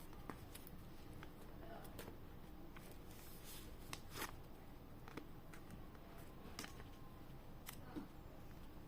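Faint handling noises of orders being packed by hand: light rustling of packaging with scattered small clicks and taps.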